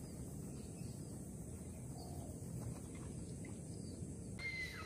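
Faint outdoor ambience: a steady low rumble with a few faint bird chirps. Shortly before the end the background changes abruptly and a clear whistled note sounds, sliding down in pitch.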